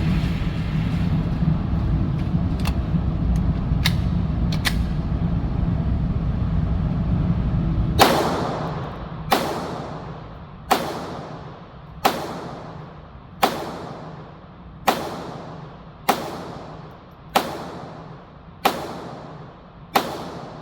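Steady low rumble with a few faint clicks, then a Glock 44 .22 LR pistol fired ten times at a slow, even pace, about one shot every 1.3 seconds, each crack dying away quickly.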